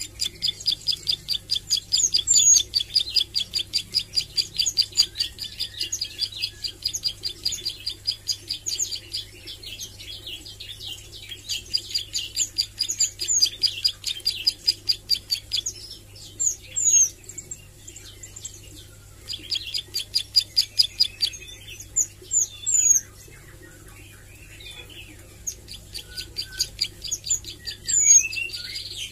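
Plain prinia (ciblek sawah) singing long runs of rapid repeated ticking notes, about ten a second, each run lasting from one to nine seconds with pauses between, and sharp high chips scattered among them. It is the song of a bird still learning to sing and to deliver its rapid 'nembak' bursts.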